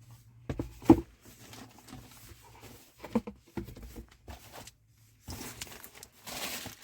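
Handling noise from an Android car stereo head unit and its wiring leads being moved about: scattered sharp clicks and knocks, with a stretch of rustling near the end.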